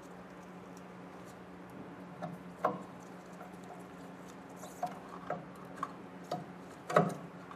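Screwdriver turning the mounting screws of a DTG printer's print head on the metal carriage: a handful of small, sharp clicks and taps, the loudest near the end, over a steady low hum.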